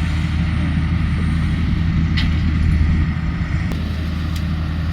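Farm tractor diesel engines running at a steady low drone while working a potato harvest.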